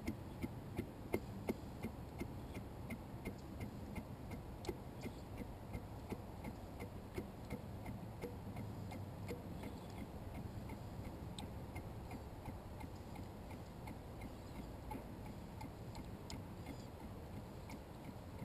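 Motor oil pouring in a steady stream from a bulk pail into a plastic funnel in an engine's oil fill, the pail glugging in regular ticks about three a second as air gets back in. The glugs grow fainter through the first half while the pour runs on.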